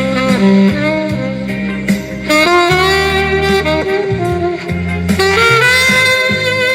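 Saxophone playing a jazzy melody of held and sliding notes over an accompaniment with a steady bass line, amplified through a live sound system.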